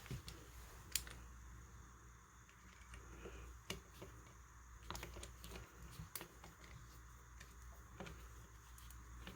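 Faint, scattered clicks and light taps of a screwdriver working a screw out of a rifle's bottom metal, about five separate clicks spread over several seconds.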